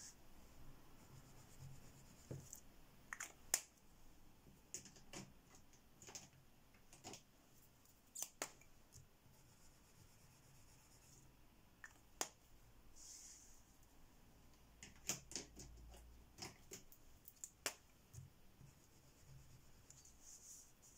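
Faint scratchy rubbing of a water-based gel crayon being scribbled onto paper, in a few short stretches. Between them come scattered light clicks and taps as the crayons are handled.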